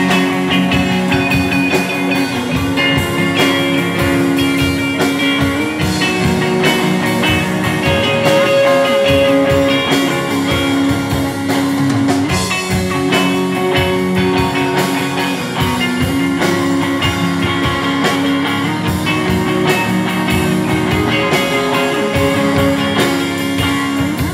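Live rock band playing an instrumental break between sung verses: electric guitars holding sustained notes over bass and a steady drum kit beat.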